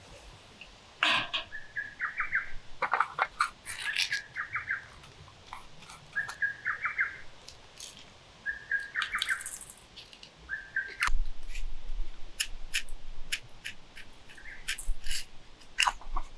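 Birds chirping in short repeated phrases, one every two to three seconds, with scattered sharp clicks and a low rumble starting about two-thirds of the way in.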